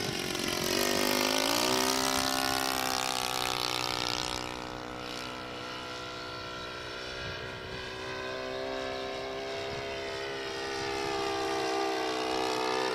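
Combustion engine of a 1:6 scale model Arado 196 airplane in flight, a steady propeller drone. Its pitch rises over the first second or two, and it grows quieter about four seconds in before getting louder again near the end.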